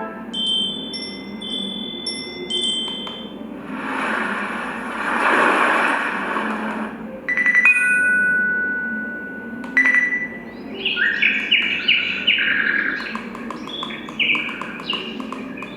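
KL6 alarm clock playing its built-in alarm ringtones through its small speaker, one short sample after another as they are cycled through. First come held electronic beeping tones, then a rushing swell of noise, then single held tones, and near the end a quick run of short high chirping notes.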